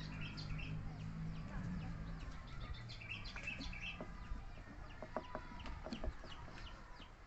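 Short high animal calls in quick runs, with scattered sharp clicks and taps.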